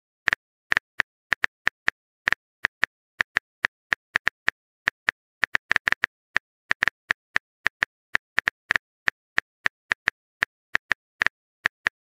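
Typing sound effect of a texting-story app: short, sharp keyboard-tap clicks at about four a second, unevenly spaced, as the next message is being typed out.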